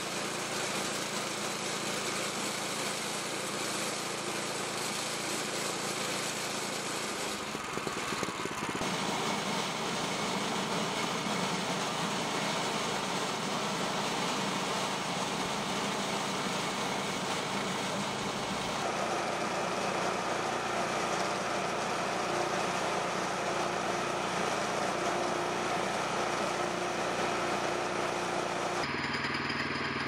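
Portable band sawmill's engine running steadily while the band blade cuts through a log, its sound shifting in character a few times.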